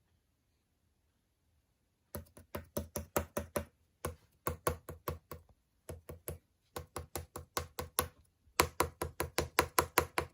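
Slime being pressed and worked by hand, making quick runs of sharp clicking pops at about five a second. The runs start about two seconds in and are broken by short pauses.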